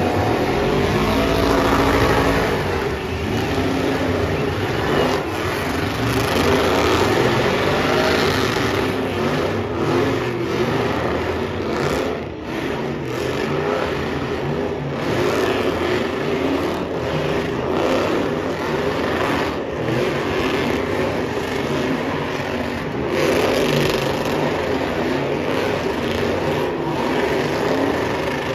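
Pickup truck engines revving hard during burnouts, the pitch rising and falling in repeated pulls over the hiss of spinning tyres.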